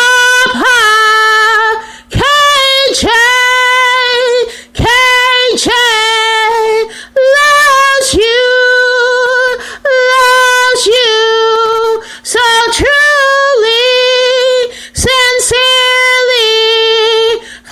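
A woman singing unaccompanied, a run of short, high held notes in repeated phrases of about two seconds, each broken by a quick breath.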